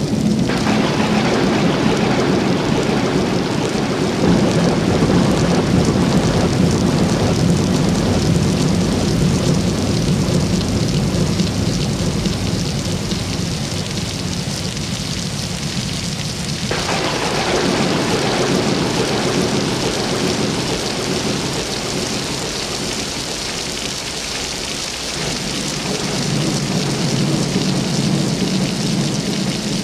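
Steady rumble and hiss of heavy rain with thunder. About 17 seconds in, the upper hiss cuts back abruptly, and near the end the low rumble swells again.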